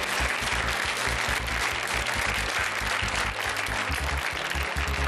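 Studio audience applauding a correct answer, with the game show's low, steady music underneath.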